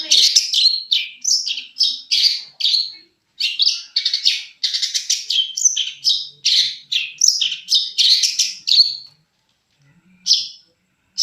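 Long-tailed shrike (penthet) singing a fast run of loud, varied chirping notes, about two to three a second, pausing briefly near the end and then starting again.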